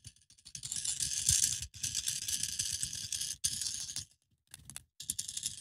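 A small pod vape device with freshly filled pods shaken in the hand, rattling in several long stretches with short breaks between them.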